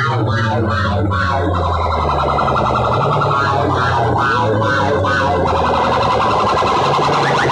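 Banks of horn loudspeakers on rival DJ sound-system rigs blasting distorted electronic music at full volume. Rapid, repeating siren-like sweeps and pulses sit over a deep, steady bass tone.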